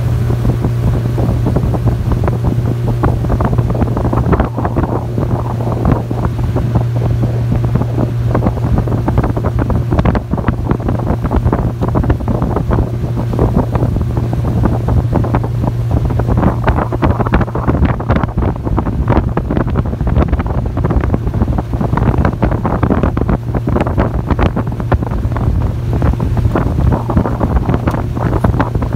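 30 hp outboard motor running at a steady speed, pushing an aluminium boat along, with wind buffeting the microphone and water rushing against the hull.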